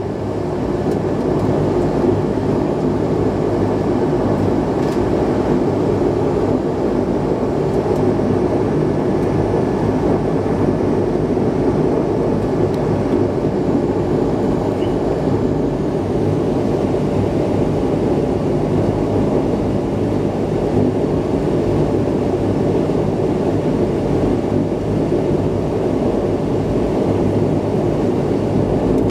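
Cabin noise of a de Havilland Canada Dash 8-100's twin turboprop engines and propellers: a steady drone with a low hum. It gets louder over the first second or two as power comes up, then holds steady.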